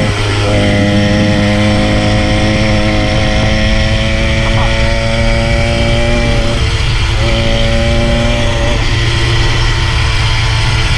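Small engine of a motorised push bike running steadily while riding, its pitch holding level and dipping briefly a few times, about half a second in and again around seven and nine seconds.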